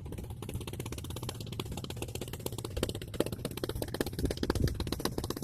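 A small engine running steadily: a rapid, even ticking over a constant low hum.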